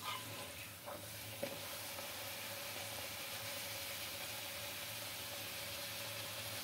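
A puffed puri deep-frying in hot oil in a kadai, the oil sizzling steadily. A few light clicks in the first second and a half come from the wire skimmer against the pan.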